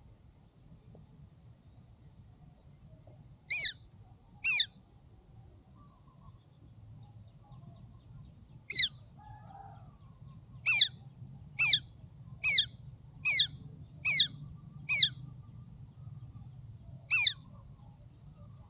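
A small bird calling: ten short, shrill, down-slurred calls. Two come a few seconds in, one more follows, then a run of six at about one a second, and a last one near the end.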